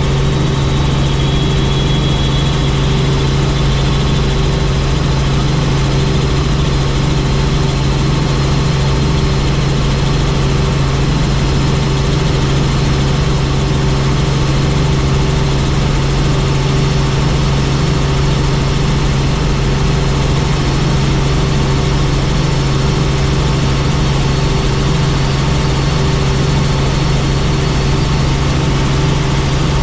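Helicopter in flight: the engine and rotors make a loud, steady drone with a strong low hum and no change in pitch.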